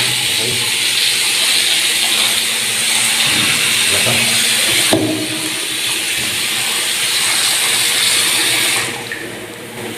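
Water running hard from a newly plumbed tap being test-run: a steady hiss that cuts off about nine seconds in, with a click about halfway through.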